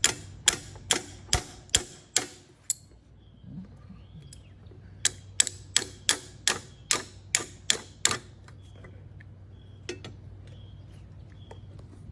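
Hand ratchet wrench clicking as a nut or bolt is run down, in two runs of sharp, even clicks, about two to three a second, with a pause between them.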